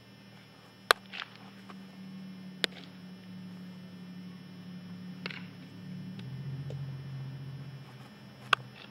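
Baseball thrown across the infield popping into a leather first baseman's mitt twice, sharp and loud, about a second in and near the end, with two fainter cracks in between. A steady low hum underneath drops in pitch and grows louder about six seconds in.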